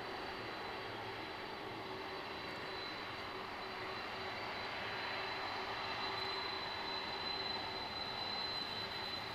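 Jet engines of a four-engined Boeing 747 freighter running, a steady rushing noise with a high whine held throughout, growing slightly louder about halfway through.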